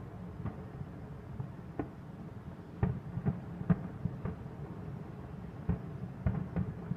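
Distant fireworks bursting: about a dozen sharp bangs at irregular intervals, each with a short echoing tail, over a steady low rumble.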